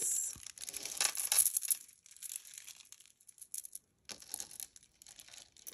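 A beaded necklace being handled and rearranged: irregular rustling with small clicks of beads, in two spells with a quieter pause between, and a sharp click at the end.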